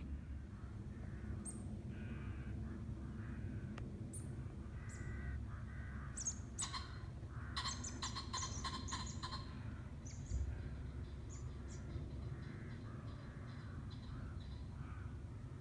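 Birds calling outdoors: several harsh, crow-like caws, thickest a few seconds in, then a run of short higher calls near the end, over a steady low rumble.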